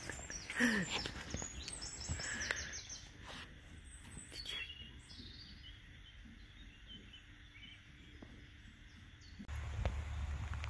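Small birds chirping in quick high runs over the first few seconds, with one short low falling call about half a second in. Near the end a steady low rumble sets in suddenly.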